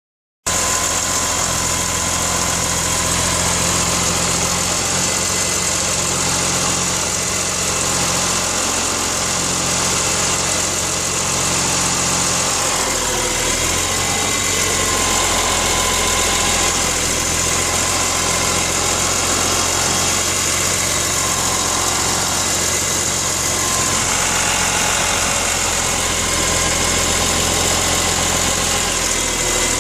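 BMW S54 3.2-litre inline-six engine idling steadily with a grinding, rattling noise, the fault the owner is trying to capture.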